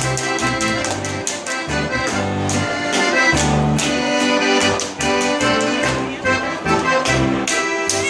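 Live Bavarian folk dance music led by an accordion, with a bouncing bass line and a steady beat of sharp percussive strokes.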